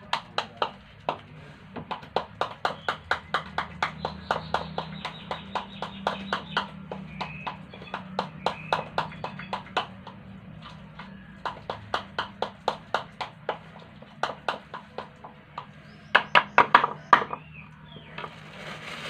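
Metal spoon stirring dry carp bait mix in a plastic bowl, clacking against the bowl in a quick steady rhythm of about four strikes a second, with a couple of short pauses.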